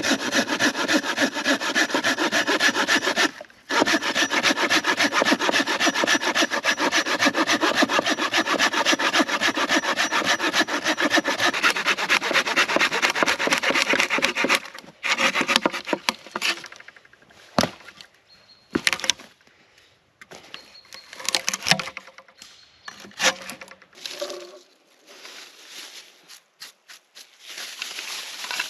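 Hand saw cutting wood with quick, steady strokes, breaking off briefly about three seconds in and stopping about halfway through. After that come scattered sharp knocks and clicks.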